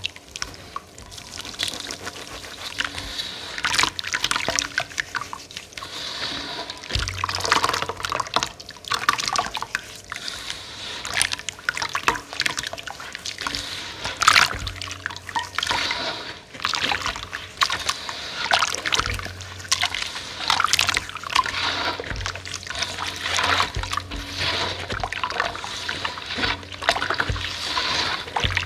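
Hands sloshing and swishing water in a steel basin while squeezing soft crumbled powdery lumps in it, with irregular splashes and trickles.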